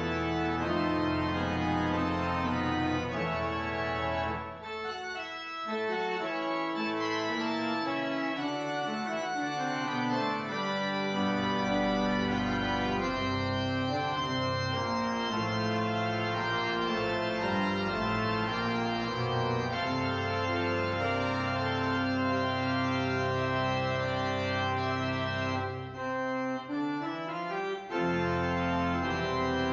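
Church organ playing sustained full chords over a deep pedal bass. The bass drops out about four seconds in and comes back several seconds later, and near the end the sound briefly thins before full chords resume.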